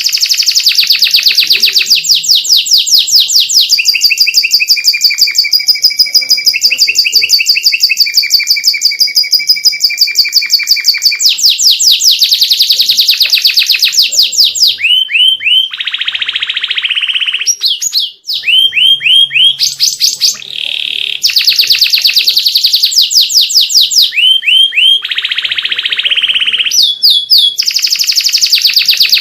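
A domestic canary sings a long, loud song made of fast repeated trilled notes, changing from phrase to phrase, with a brief break about eighteen seconds in.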